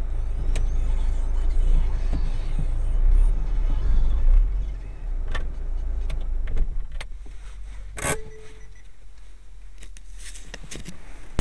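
Car engine and road rumble heard inside the cabin, dying down about halfway through as the car comes to a stop. Then come several sharp clicks and one loud clack about eight seconds in.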